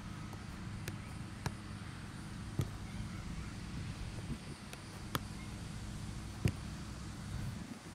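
Soccer ball being touched and bounced on grass by a player's feet: a handful of sharp, irregularly spaced taps, the loudest about six and a half seconds in, over a steady low background rumble.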